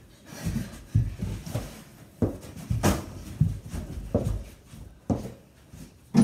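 Irregular thuds and scuffs of feet and a small ball on a bedroom floor during a game of mini basketball, roughly every half second, with a couple of sharper knocks, the last one as a shot goes up at the mini hoop at the very end.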